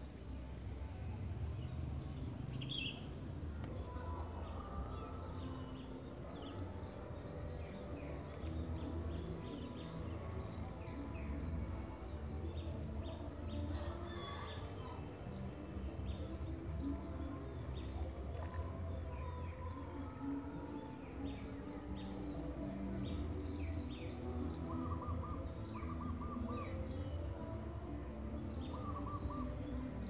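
Birds chirping and calling, with many short high chirps throughout and a few short runs of lower repeated notes late on, over a steady low rumble of outdoor background noise.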